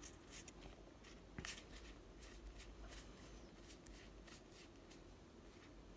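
Faint slides and soft flicks of Yu-Gi-Oh trading cards being moved one at a time through a stack in the hands. The strongest flick comes about a second and a half in.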